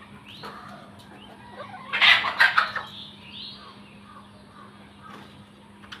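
Domestic chickens clucking and calling, with a louder, harsh burst of sound about two seconds in.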